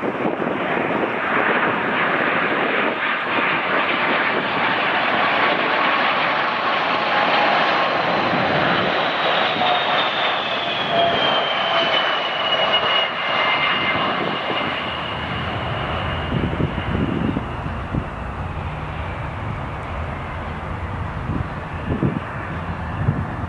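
A British Airways Boeing 747-400's four Rolls-Royce RB211 turbofans on final approach, passing close by. It is a steady jet roar carrying a fan whine that falls in pitch as the jet goes past, about halfway through. Then the sound turns lower and duller as the jet moves off toward touchdown.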